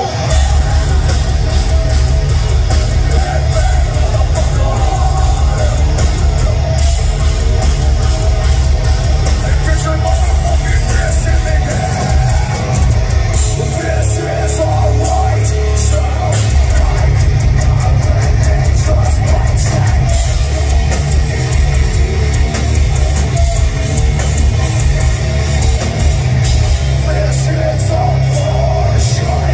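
Heavy metal band playing live at full volume, with distorted guitars and rapid drumming, heard from within the audience.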